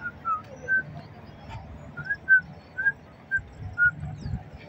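A person whistling: about eight short, clear notes, some sliding slightly up or down, with uneven gaps between them.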